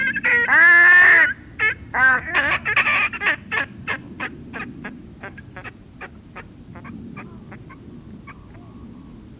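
Whooper swans calling: one loud bugling honk, then a run of short honking notes, about three a second, that grow fainter and fainter.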